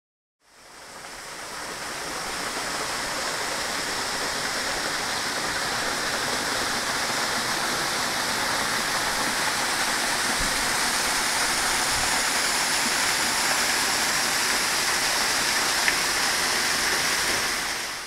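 Waterfall: a steady, even rush of falling water with no surges. It fades in over the first second or two and fades out at the end, with one small click near the end.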